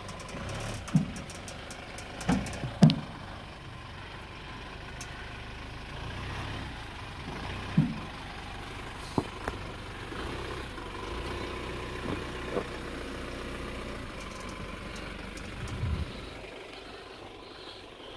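Toyota Hilux (N80) engine running low and steady as the truck crawls through deep ruts, with several short sharp knocks and thumps, the loudest about three seconds in and again about eight seconds in. The engine sound fades near the end.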